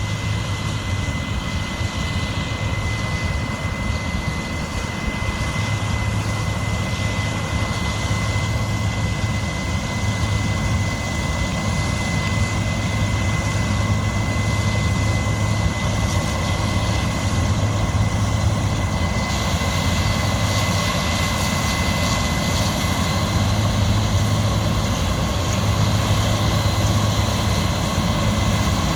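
Heavy diesel harvest machinery running steadily under load, with a thin, steady high whine over the engine. It grows a little louder partway through.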